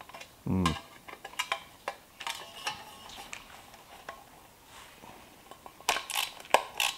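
Screwdriver working at rusty screws on a steel headlight bucket: scattered light metal clicks and scrapes, with a quicker run of clicks near the end. The screws are rusted and reluctant to turn.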